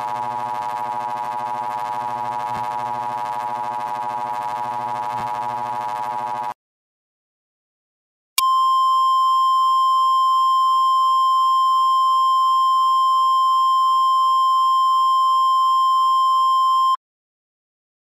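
Emergency Alert System two-tone attention signal, harsh and distorted, lasting about six and a half seconds. After a short silence, the National Weather Service 1050 Hz warning alarm tone sounds as a single steady tone for about eight and a half seconds.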